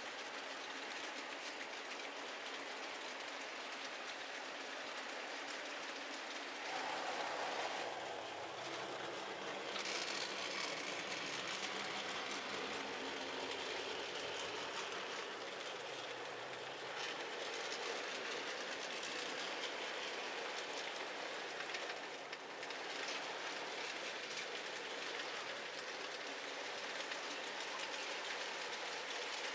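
Model freight train rolling along the layout's track: a steady rolling hiss from the wagon wheels on the rails, a little louder from about seven seconds in.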